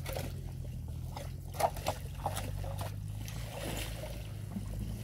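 Shovel prodding through broken ice and slush among dry reeds: sloshing, crunching and rustling, with a sharp knock about one and a half seconds in, over a steady low hum.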